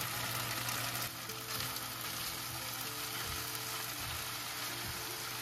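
Beef slices sizzling steadily in a hot nonstick frying pan, coated in dark soy sauce and oyster sauce.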